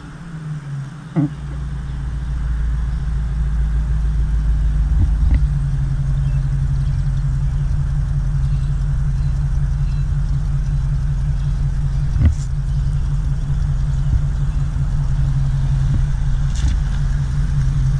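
A car engine running at a steady low speed, its low hum growing louder over the first few seconds and then holding. A few short sharp clicks or knocks are heard, the loudest about twelve seconds in.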